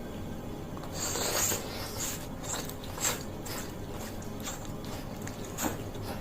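Close-up eating sounds of a person eating Aceh-style fried noodles. A longer noisy slurp comes about a second in, followed by a string of short chewing smacks.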